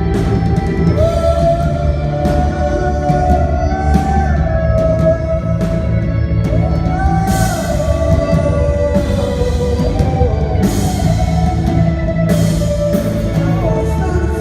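Live rock band playing, with a singer holding long, wavering notes over drums, bass and guitar. Cymbal crashes swell up about halfway through and again a few seconds later.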